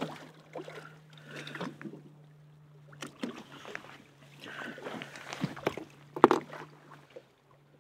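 Steady low hum of a boat's motor, with scattered light clicks and knocks over it.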